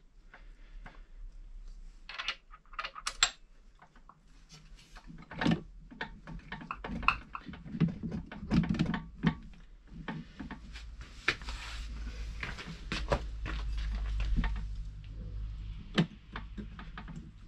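Irregular clicks and knocks, with a few dull thuds, as parts of a trench rammer's foot assembly are shifted and lined up by hand. A low rumble rises for a few seconds past the middle.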